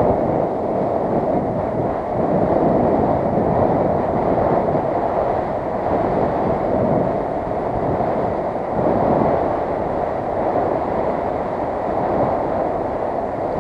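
Skis sliding and scraping over groomed, packed snow on a downhill run, mixed with wind rushing over the camera's microphone: a steady rushing noise that swells and eases a little.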